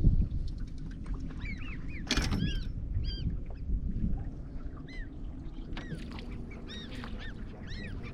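Birds working over schooling fish, calling again and again in short rising-and-falling calls, over a steady low rumble of boat and water. A brief noisy burst, such as a splash or knock, comes about two seconds in.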